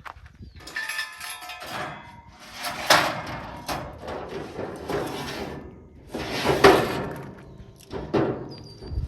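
A series of clattering knocks and scrapes, several loud bursts about a second apart, with a sharp knock near the end.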